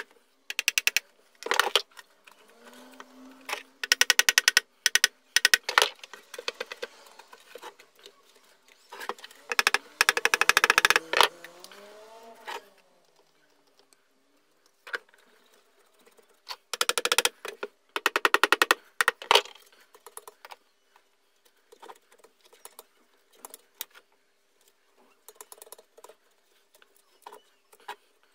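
A rust-seized electric hand planer being knocked and worked apart by hand: several short runs of rapid metallic clicking and rattling, with a few brief squeaks, then quieter scattered ticks. The planer has been damaged by damp storage, rust and dust.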